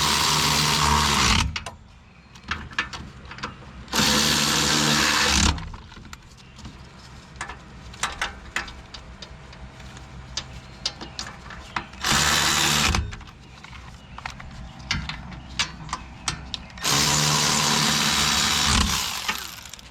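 A cordless power tool runs in four bursts of one to two seconds each, driving in the bolts of a new rear wheel hub bearing assembly. Small clicks and knocks are heard between the bursts.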